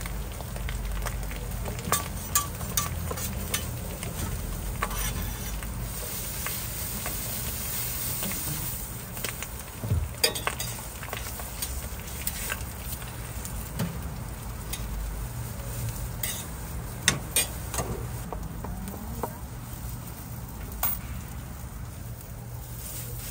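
Food sizzling on a street-stall toast griddle, with frequent sharp clicks and scrapes of metal utensils against the hot plate, the loudest about ten and seventeen seconds in.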